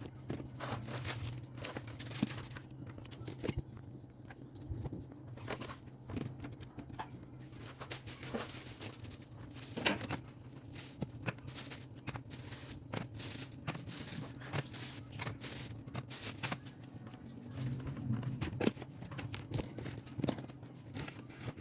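Irregular handling noises: crinkling, rustling and small clicks and knocks, as of items and plastic packaging being moved about, over a steady low hum.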